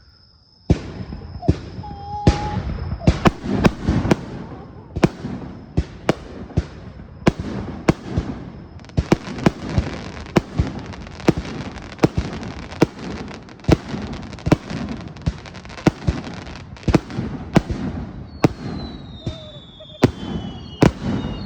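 Fireworks display: a dense run of sharp bangs over a continuous crackle, starting suddenly just under a second in. Near the end, high falling whistle-like tones sound among the bangs.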